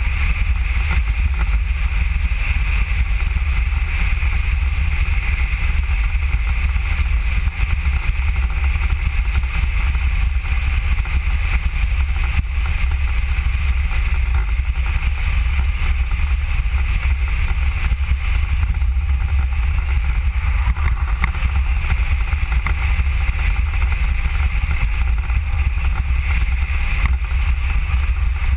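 Steady rumble of a human-powered Mango velomobile rolling along a paved road: deep, even road and wind noise with a hiss on top, no sudden events.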